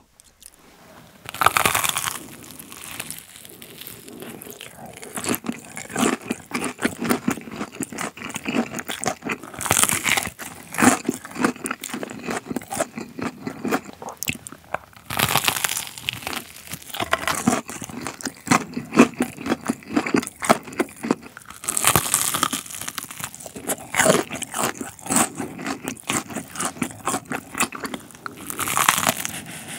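Close-miked crunching and chewing of a Korean corn dog coated in diced fried potato: several loud crunchy bites spread through, with steady chewing crunches between them.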